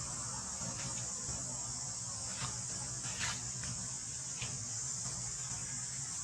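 Steady high-pitched drone of insects, with a low rumble underneath and a few soft clicks scattered through.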